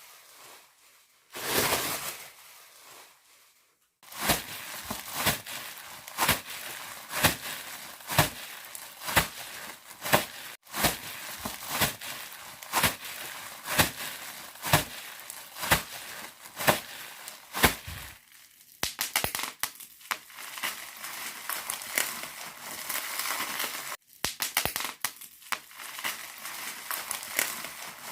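Bubble wrap being squeezed and crinkled: sharp pops at a steady pace, well over one a second, over a crinkly crackle. Later the popping turns into denser, busier crackling, like a recreated fire.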